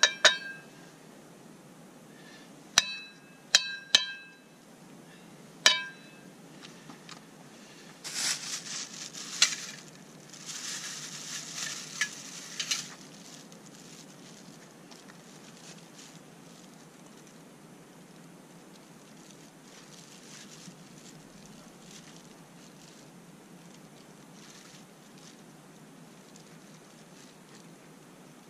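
Five sharp, ringing clinks of hard objects in the first six seconds, then a crinkling rustle lasting about five seconds, after which only a steady low background hiss remains.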